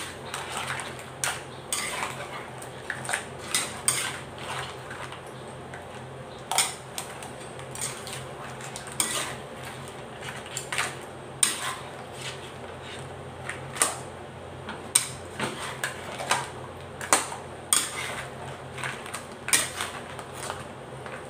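Metal spatula scraping and clanking against a stainless steel wok while crab pieces in salted-egg sauce are tossed and stirred: irregular knocks and scrapes every second or so, over a steady low hum.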